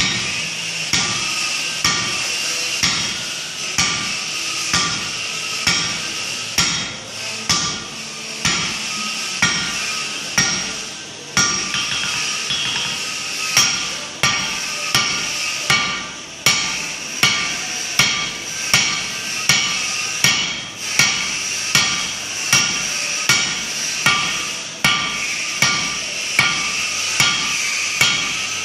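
Hand hammer striking red-hot steel bar stock on an anvil in a steady rhythm of about three blows every two seconds, each blow followed by a short metallic ring from the anvil.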